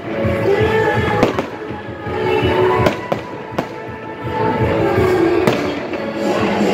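Aerial fireworks shells bursting in the sky, about four sharp bangs, over steady music.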